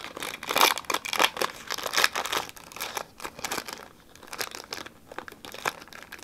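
Foil Pokémon TCG booster pack wrapper crinkling and being torn open by hand, an irregular run of crackles that is louder in the first half and softer after.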